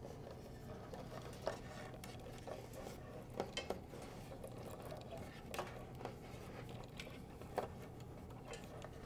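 Faint handling noise of turntable tone arm cables being gathered by hand under the chassis, with a few light clicks and ticks spread through it over a low steady room hum.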